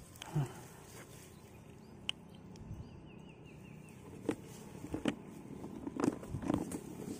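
Handling noises: rustling with a scattered series of light clicks and knocks as hands handle a caught fish and gear in the grass. The loudest knock comes just under half a second in.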